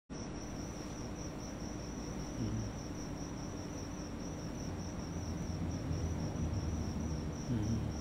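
A cricket chirping steadily, a high, evenly pulsed trill repeating several times a second, over a low background hum.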